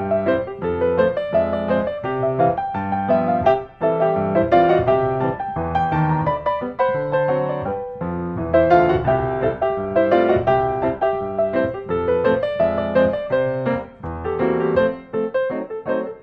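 Background instrumental music on piano, a steady run of quick melodic notes.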